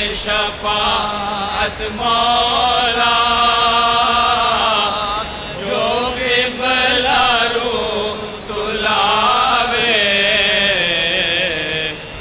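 A voice chanting in long, drawn-out melodic phrases that waver and glide in pitch, with short breaths between phrases.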